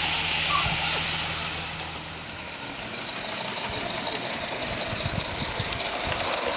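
Regner live-steam garden-scale model of a Saxon VII K narrow-gauge locomotive running past with its wagons: a steady steam hiss with irregular low knocks of the exhaust and wheels on the track. A low steady hum fades out about two seconds in.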